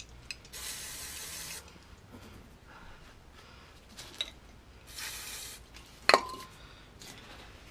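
Aerosol brake cleaner sprayed in two short hisses, one about half a second in and another about five seconds in. A sharp metallic clink follows about six seconds in.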